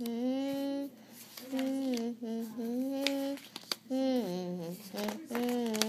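A child humming a wordless tune in long held notes that slide up and down in pitch, with a couple of short clicks about halfway through.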